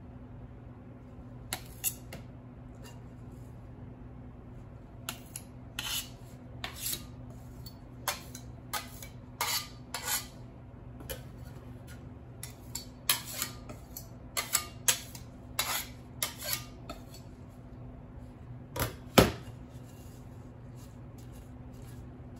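Cake-decorating tools in use: an irregular string of clinks, taps and short scrapes, with the sharpest knock about nineteen seconds in. A steady low hum runs underneath.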